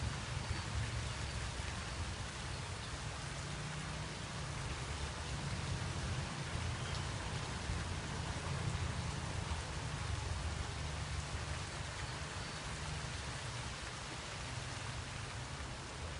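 Steady rain falling, an even dense patter with a low rumble underneath.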